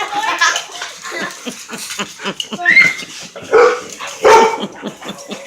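Dog barking and yipping in short repeated calls, with two louder barks about three and a half and four and a half seconds in.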